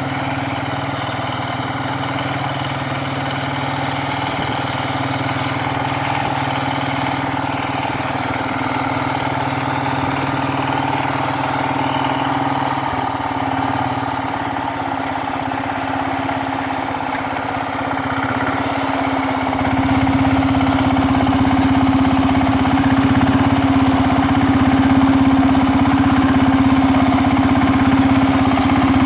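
Engine of a mini John Deere 4020 narrow-front farm tractor running steadily. About two-thirds of the way through it gets louder and fuller in the low end.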